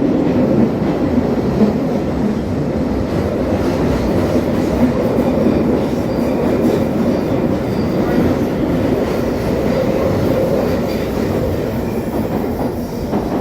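London Underground Northern line train running between stations, a steady loud rumble of wheels and motors heard from inside the carriage.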